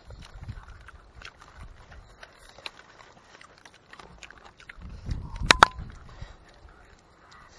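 Dry palm leaves crackling and rustling under hands and bodies as grilled fish is pulled apart, with scattered light clicks and low bumps. About five and a half seconds in, a brief loud crackle and knock stands out.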